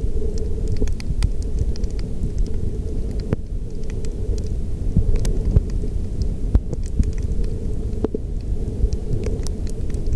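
Underwater sound picked up by a camera in a waterproof housing: a steady, muffled low rumble of moving water, with many small scattered clicks and crackles.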